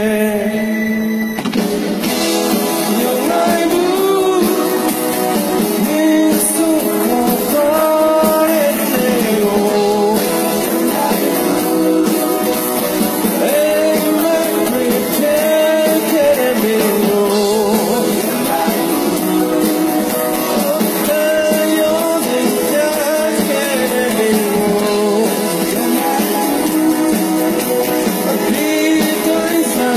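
Live rock band playing with a singer: vocals over drum kit and guitars, heard from the crowd and thin, with almost no bass. A held chord gives way to the full band about a second and a half in.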